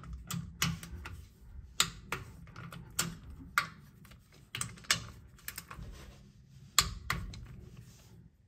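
Ratchet of a digital torque wrench clicking in short, irregular runs, with the clink of the socket on the bolt heads, as the rear differential cover bolts are torqued to 30 foot-pounds.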